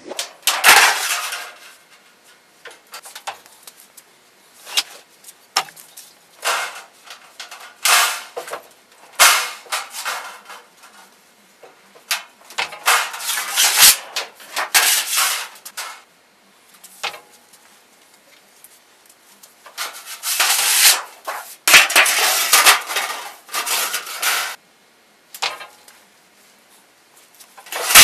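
Light-gauge sheet metal rattling, scraping and clanking as it is handled, flexed and worked on a sheet metal brake, in irregular bursts with short quiet gaps between.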